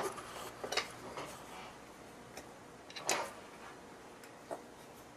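A few scattered light clicks and taps from handling a small circuit board and its components clamped in a bench vise, the clearest about three seconds in, over a faint hiss.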